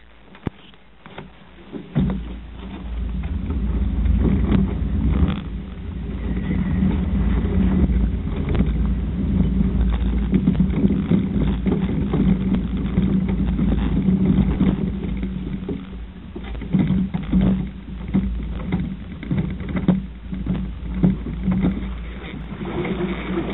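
Small sailboat under way: a steady rumble of wind and water against the boat, with scattered knocks and taps.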